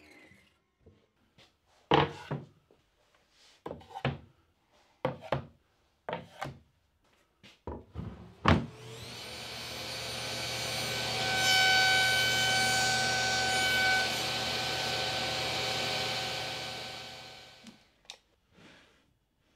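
Sharp wooden knocks and clatter for the first eight seconds or so, then a table saw starts with a rising whine, runs steadily, cuts through plywood in a box-joint sled, which is louder for a few seconds mid-run, and spins down near the end.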